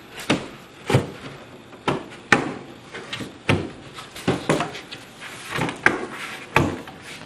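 Wooden cabinet back panel being knocked and worked down into the grooves of a ready-to-assemble cabinet: about a dozen irregular knocks and thuds of wood on wood.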